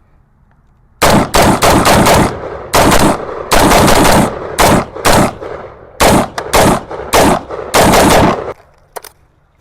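A handgun fired rapidly: many sharp shots in quick strings, starting about a second in and lasting about seven seconds, then a faint click.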